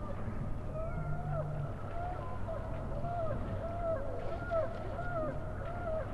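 Gulls calling repeatedly, short rising-and-falling cries about two a second, over a low steady rumble.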